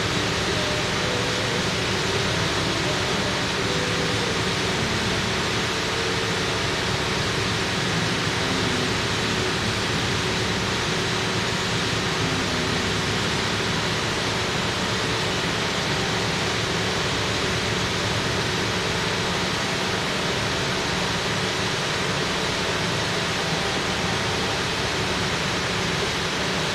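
A steady rushing hiss at an even level with no distinct events, with faint wavering tones underneath.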